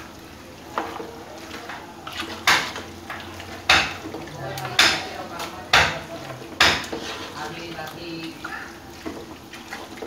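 A spoon mixing spice-coated raw mutton pieces in a large metal pot, knocking sharply against the pot about once a second, six times in all, with softer mixing sounds between the knocks.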